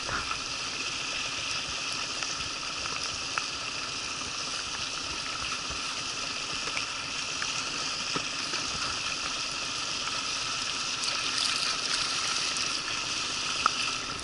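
River current rushing steadily past the boat, a continuous watery hiss that grows a little louder near the end, with a few faint ticks.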